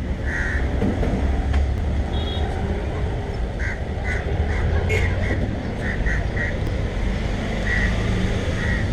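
Short bird calls, repeated irregularly about a dozen times, over a steady low rumble of outdoor background noise.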